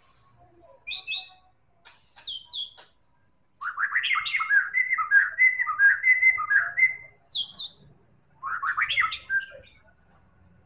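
White-rumped shama singing: a few short high chirps, then a run of quick, varied whistled notes lasting about three seconds, a brief high call, and a shorter burst of song a little later.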